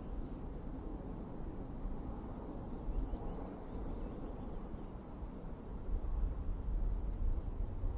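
Outdoor ambience: a steady low rumble that grows louder about six seconds in, with a few faint, high bird chirps.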